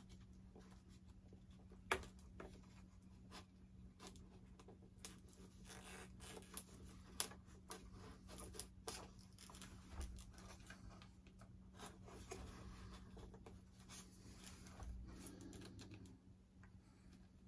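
Faint scratching and rustling with scattered sharp clicks, the loudest about two seconds and seven seconds in, as a wire lead is worked and pushed through a channel cut in a foam model jet's airframe. A steady low hum runs underneath.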